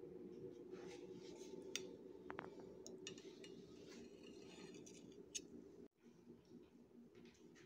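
Faint clicks and light scrapes of a metal fork and cake server against a glass plate, with a short metallic ping about two and a half seconds in, over a low steady hum that cuts off abruptly near the end.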